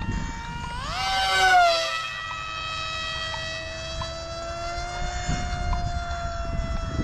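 Remote-control model airplane motor whining. It rises sharply in pitch about a second in as the throttle opens, is loudest just after, then holds a steady high whine.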